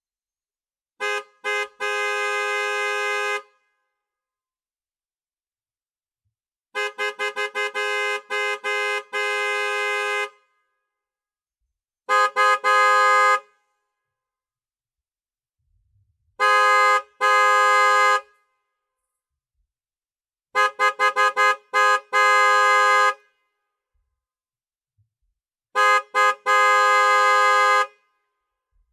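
Car horn honked in six separate bursts, each a few quick short taps followed by a long blast of about one to two seconds, with silence between bursts.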